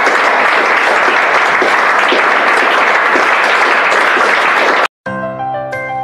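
Small audience applauding, cut off abruptly about five seconds in; a short chiming outro jingle starts right after.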